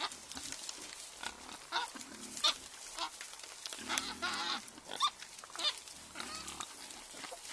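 Wild boar grunting and squealing, a string of short high calls with two longer, deeper grunts about four and six seconds in.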